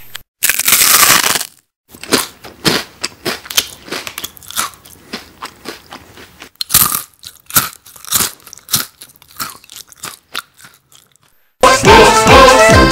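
A person eating something crunchy: a loud crunching bite, then irregular crunching and chewing for several seconds. Music comes in near the end.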